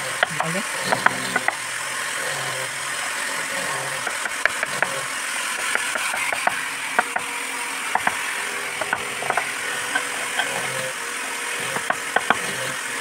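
Wooden mallet striking the handle of a wood-carving gouge as it cuts into a wooden panel: sharp knocks in short irregular runs with pauses between, over a steady background noise.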